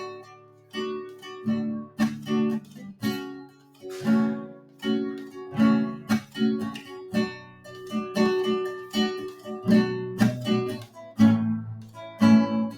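Acoustic guitar strumming chords in a steady rhythm, an instrumental passage between sung verses of a worship song.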